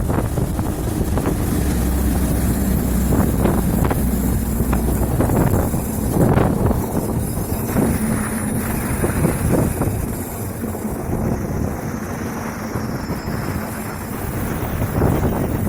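Passenger train running past with a steady low rumble and scattered knocks, wind buffeting the microphone.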